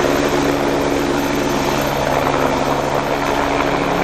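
Helicopter sound: a steady engine drone with fast rotor beating.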